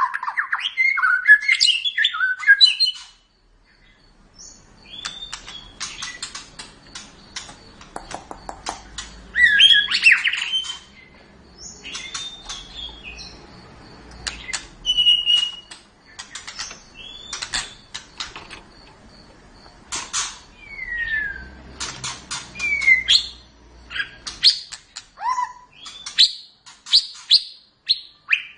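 White-rumped shama (murai batu) singing: a string of varied whistled phrases that glide up and down, mixed with rapid sharp clicking notes. There is a brief pause about three seconds in.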